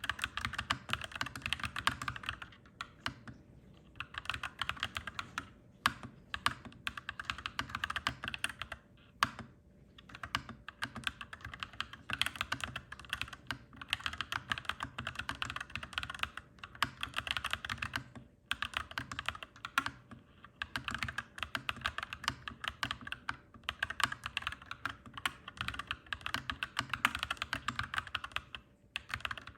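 Clacky mechanical keyboard being typed on in quick runs of keystrokes, broken by short pauses every few seconds.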